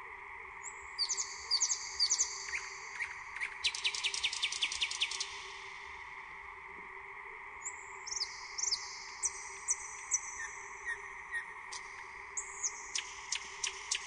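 Nightingale singing: phrases of high whistled notes and fast trains of repeated short clicking notes, with a pause of about two seconds in the middle. A steady faint hum runs underneath.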